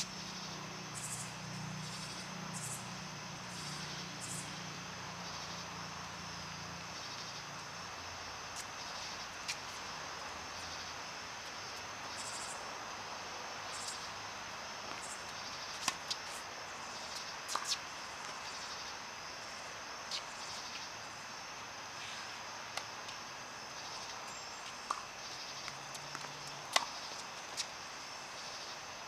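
Sharp, widely spaced knocks of tennis balls struck by racquets, a few seconds apart and clustered in the second half, over a steady background of insects chirping in short repeated runs.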